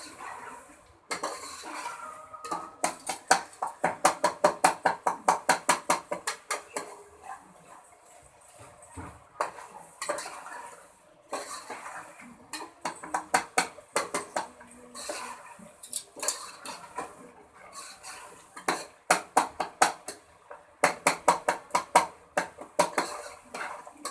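A spatula knocking and scraping against a cooking pot in quick runs of strokes, several a second, with short pauses, while keema and tomatoes are stirred and fried down (bhunai).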